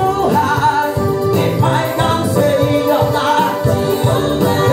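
Live gospel singing: a woman's voice through a microphone, over sustained keyboard chords.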